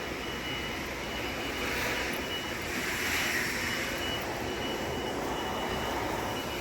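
Steady background rumble and hiss of a large store's garden area, with a faint steady high tone.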